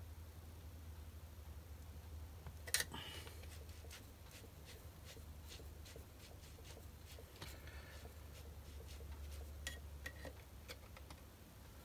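Faint metallic clicks and taps of a wrench and hands working on a steel BS-0 semi-universal dividing head while its adjustment is eased and its crank turned. One sharper click comes about three seconds in, over a low steady hum.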